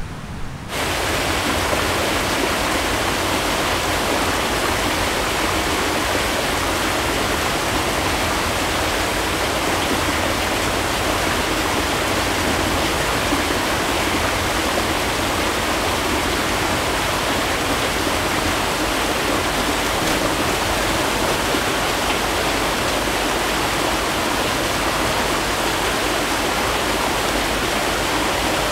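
Small mountain waterfall pouring into a rock pool: a steady rushing of falling water that starts suddenly just under a second in.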